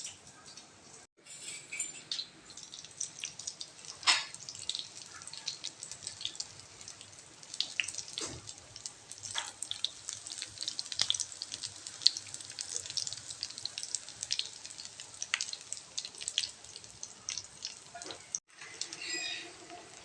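Food frying in hot oil: a steady sizzle with dense, irregular crackles and pops.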